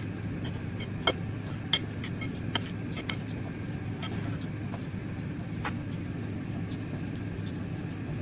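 Steady low hum of a Cosori dual-basket air fryer's fan running through its preheat, with a few sharp clinks of a metal spoon against a bowl while chicken pieces are stirred.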